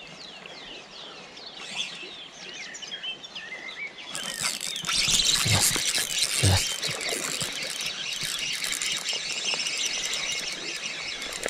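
Songbirds chirping in short falling calls for the first few seconds. About four seconds in, a louder steady hiss with fine ticking starts, the whir of a spinning reel being wound in close to the microphone, with two low knocks from the rod being handled.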